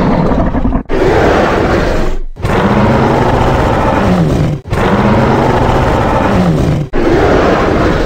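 Dinosaur roar sound effect for a large theropod: a string of long, loud, rough roars following one another with only brief breaks, two of them with a tone that rises and then falls.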